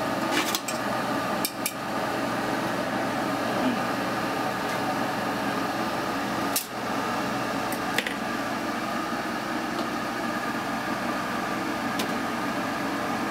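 A steady mechanical hum, with a few sharp clinks of a fork and a serving spoon against metal pots.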